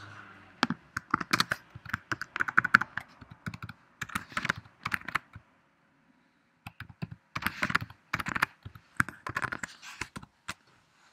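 Typing on a computer keyboard: two quick runs of key clicks with a pause of about a second and a half around the middle.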